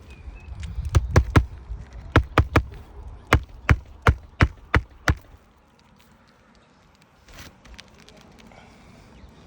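Hammer striking roofing nails, driving them into asphalt shingles being re-nailed. There are a dozen or so sharp blows in quick succession, about three a second, which stop a little past halfway.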